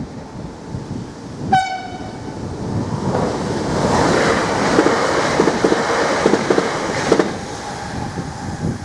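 NMBS intercity train giving one short horn blast, then passing over the level crossing with a loud rush and its wheels clacking over the rail joints for about four seconds before it clears.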